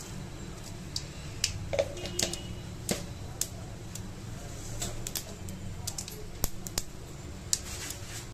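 A small pool of oil heating in an aluminium kadai, crackling with irregular sharp pops over a steady low hum, as the oil gets hot for a tempering.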